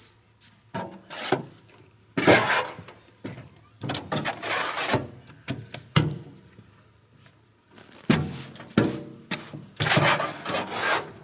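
Shovel scraping and knocking chicken manure out of a tipped wheelbarrow: a run of separate rough scrapes and thunks, about half a dozen, each under a second long.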